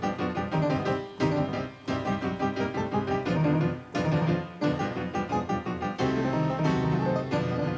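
Music with a keyboard, piano-like, playing a busy run of quick notes, with a few short breaks in the first half.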